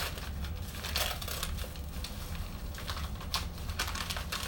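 Yellow padded paper mailer being handled and pulled open by hand: irregular paper crinkling and rustling with scattered small crackles, over a steady low hum.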